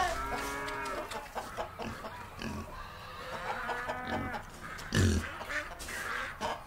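Barnyard animal calls: a drawn-out pitched call at the start, then short scattered calls, and a loud low call about five seconds in.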